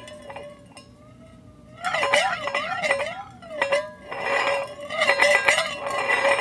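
A ball rolling around inside a metal dog food bowl, the bowl ringing with a wavering, warbling tone and small clicks as the ball goes round. It is softer for the first two seconds, then louder, with a dense rattle from about four seconds in.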